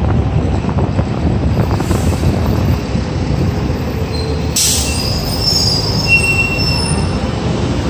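Loud low rumble of a passing vehicle, with high-pitched metallic squealing that sets in about halfway through and holds several thin steady tones.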